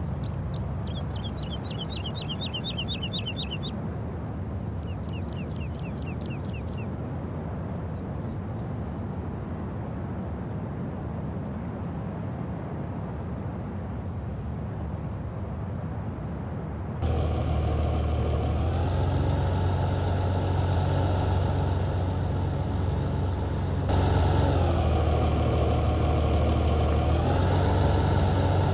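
Large farm tractor's diesel engine working a plough. At first it is a distant low rumble, with a bird giving two quick runs of chirps. About 17 s in the engine becomes much louder and plainly pitched, and its revs dip and then rise again near the end.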